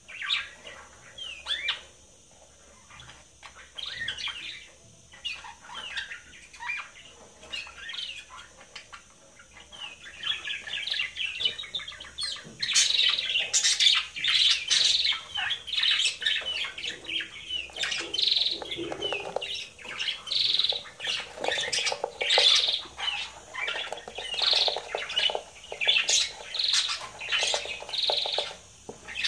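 Budgerigars chirping and chattering: scattered short chirps at first, then a louder, continuous warbling chatter from about ten seconds in.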